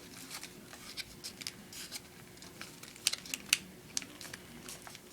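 Paper being folded and creased by hand: a run of short crinkling and scraping strokes, the sharpest a little after three seconds and again about half a second later.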